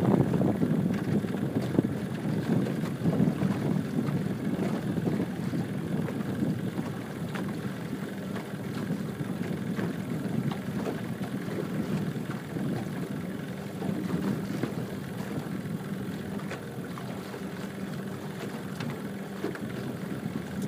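Wind buffeting the microphone and water slapping against the hull of a small aluminum fishing boat: a steady rushing sound that gradually eases.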